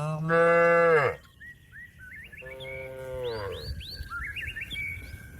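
Cow mooing twice: a loud, steady moo lasting about a second, then a quieter one about two seconds later, each dropping in pitch as it ends, a call to the rest of the herd. Small birds chirp between and after the moos.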